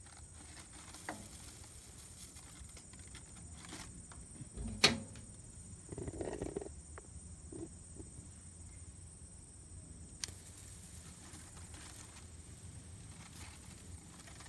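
Quiet background broken by a loud sharp click about five seconds in, a short crackling rustle of crumpled paper a second later, and a smaller click near ten seconds, as an electric arc lighter is worked against paper on a grill grate.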